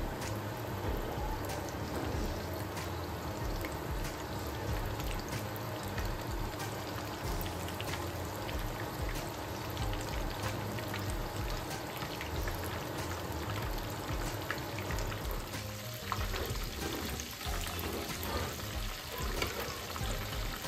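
Flour-battered chicken pieces deep-frying in a pan of vegetable oil, the oil sizzling with many small crackles, over background music.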